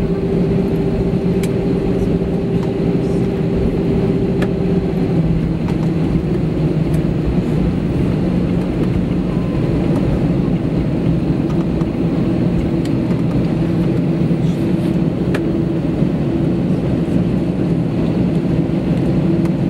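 Cabin noise of an Airbus A320 taxiing, heard from a window seat over the wing: a steady low engine hum with a held tone that steps down slightly in pitch about five seconds in, and a few faint clicks and rattles.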